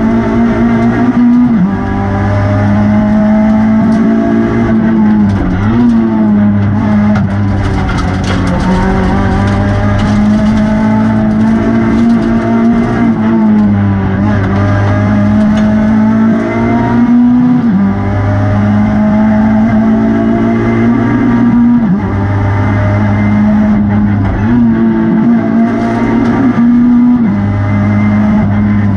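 Renault Twingo R2 rally car's 1.6-litre four-cylinder engine running hard at high revs, heard from inside the cockpit, its pitch dipping briefly and climbing again every few seconds as it shifts gear.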